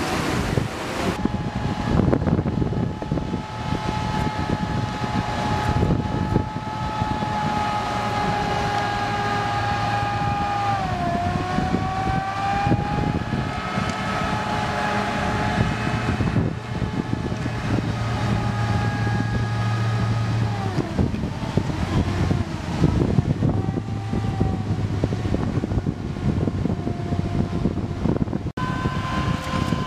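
AAV7 amphibious assault vehicles' diesel engines running, a deep rumble under a steady high whine that dips and climbs back in pitch about eleven seconds in.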